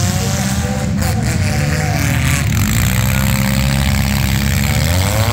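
Several four-cylinder demolition-derby cars' engines running and revving hard together, the pitch rising and falling as the drivers work the throttle; one rises sharply near the end.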